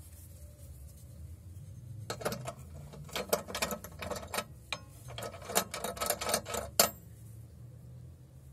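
Sharp, irregular metallic clicks and clinks starting about two seconds in and stopping near the end: a hex key turning the pivot bolt of the angle guide on a steel angle-grinder stand.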